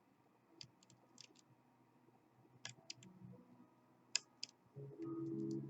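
Lock pick clicking faintly against the pins in a KABA Gemini's keyway while feeling for the bottom pins: a handful of light, sharp clicks, the loudest about four seconds in. Near the end a low, steady hum comes in.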